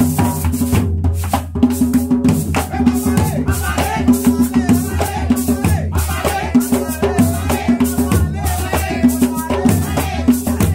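Live percussion music: drums beating a fast rhythm with a shaken rattle, and voices singing or calling over it from about three seconds in.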